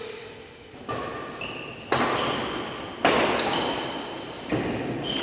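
Badminton rally: a shuttlecock struck by rackets four times, roughly once a second, each hit ringing in a large hall. Short high squeaks of shoes on the court come between the hits.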